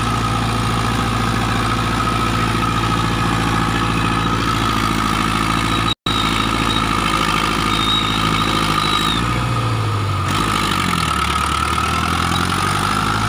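Massey Ferguson 440 tractor's diesel engine running under load as it pulls a loaded trailer through deep mud. The engine note drops and settles lower about two-thirds of the way in, and the sound cuts out for an instant near the middle.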